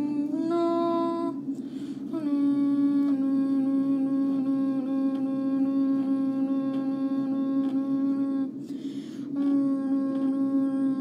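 A child humming long, steady held notes on one pitch: a short note, then a single note held for about six seconds, and another held note starting near the end.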